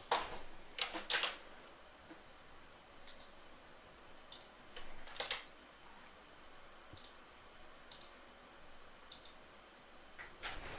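Scattered sharp clicks and light taps: a cluster of louder ones at the start, another about five seconds in, and a few faint ticks between.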